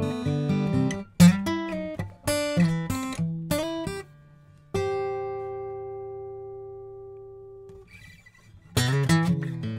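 Gibson Hummingbird Sustainable acoustic dreadnought, with walnut back and sides, being played: a few chords struck about a second apart, then a single note left to ring and fade for about three seconds, before playing picks up again near the end.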